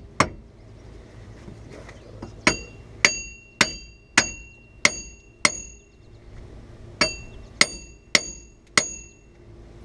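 Hammer blows on wheel studs threaded back into a 1994 Camaro Z28's front hub, driving the stuck hub and bearing assembly off the spindle. Sharp metal-on-metal strikes, each with a ringing tone: one blow, then a run of six about half a second apart, and after a short pause four more.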